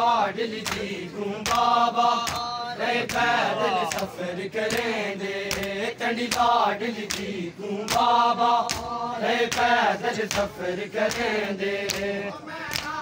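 Men chanting a noha in unison, with regular sharp slaps of hands striking chests (matam) keeping a steady beat.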